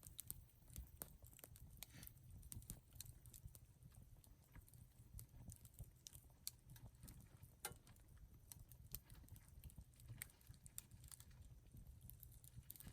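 Wood campfire crackling quietly: irregular small snaps and pops over a low steady rumble.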